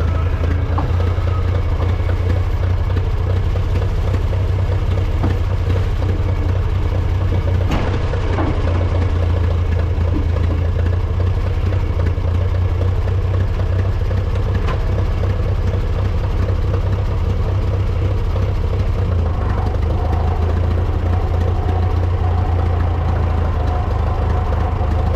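Engine of an International Harvester backhoe-loader running steadily at a low speed, with a deep even drone. It sounds kind of loud, which the owner puts down to a muffler that needs replacing.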